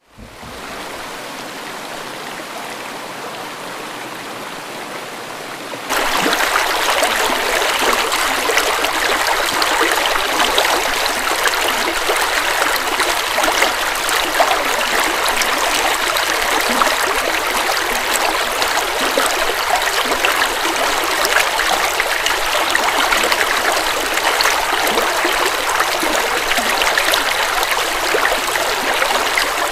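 River water flowing steadily. The sound gets noticeably louder about six seconds in and then holds steady.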